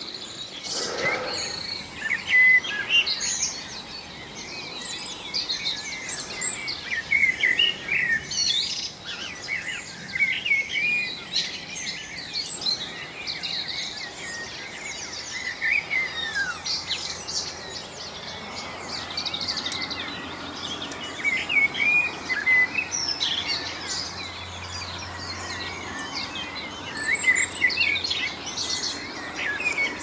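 Dawn chorus of many songbirds singing at once in a forest, with overlapping high chirps and song phrases all through.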